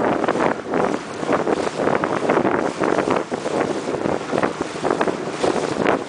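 Wind buffeting a handheld camera's microphone: loud rumbling noise that comes in uneven gusts.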